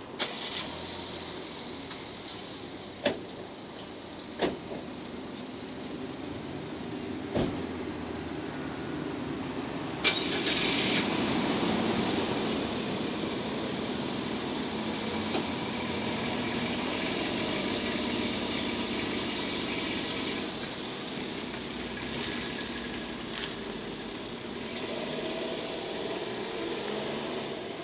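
A steady vehicle rumble with several sharp clicks in the first few seconds and a short hiss about ten seconds in, after which the rumble grows a little louder and holds.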